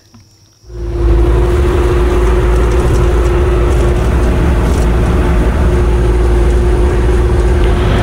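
Kubota mini excavator's diesel engine running, heard from the operator's seat: a loud, steady deep rumble with one steady tone above it, starting abruptly just under a second in.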